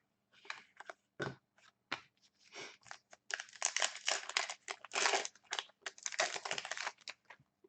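Foil trading-card pack wrapper being torn open and crinkled, in irregular rustling bursts that grow denser partway through.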